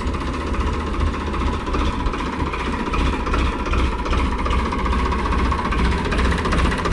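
Ford 3610 tractor's three-cylinder diesel engine idling steadily just after being started, with a rapid even beat of pulses.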